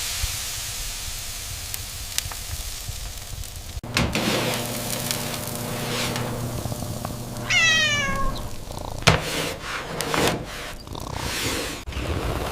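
Food sizzling in a pan for the first few seconds, cut off sharply, then a single cat meow falling in pitch about halfway through, followed by a few light knocks.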